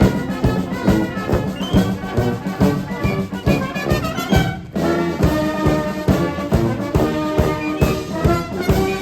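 Military brass band playing, held brass notes over a steady drum beat, with a brief break about four and a half seconds in.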